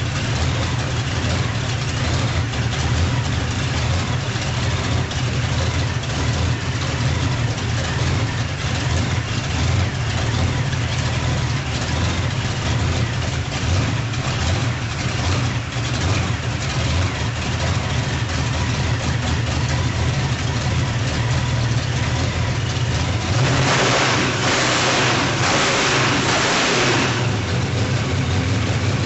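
Radial engine running steadily on a test stand, with a deep, even low rumble. Near the end it surges into a louder rushing noise for about three and a half seconds before settling back.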